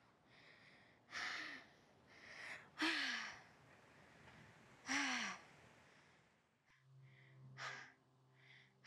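A woman breathing heavily and out of breath, with about five loud, breathy gasps and sighs a second or two apart, some carrying a little voice that falls in pitch.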